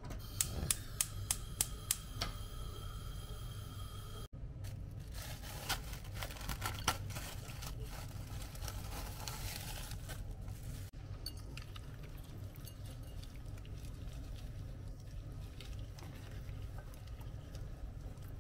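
About six sharp clicks at the gas hob in the first two seconds, then crackly rustling with a few ticks, and from about two thirds of the way through, soft wet squishing of latex-gloved hands rubbing marinade into raw chicken pieces in a glass bowl.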